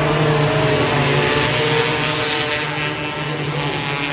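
Several Jr 270 micro sprint car engines racing together on a dirt oval, their overlapping notes rising and falling as the cars accelerate through the turn and pass close by.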